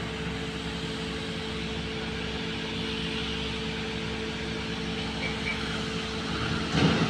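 Tractor diesel engine running steadily, heard from the driver's seat, with a louder surge near the end.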